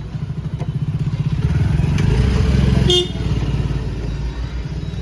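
A motor vehicle's engine running close by with a low, pulsing rumble that grows louder over the first couple of seconds, with a short horn toot about three seconds in, after which the engine sound falls back.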